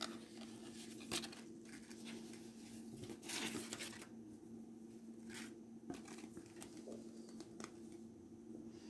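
Faint handling noises of cotton gingham fabric and a piece of card being moved by hand: a sharp tap about a second in, a longer rustle around three and a half seconds in, and a few shorter rustles later, over a low steady hum.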